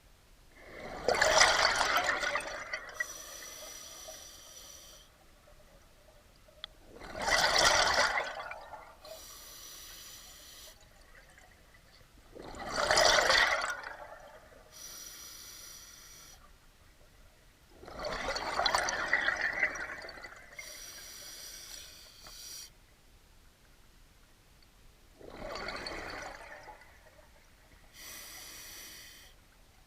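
Scuba diver breathing through a regulator underwater: about five breaths, one every five to six seconds. Each is a loud gush of exhaled bubbles followed by a quieter, higher hiss.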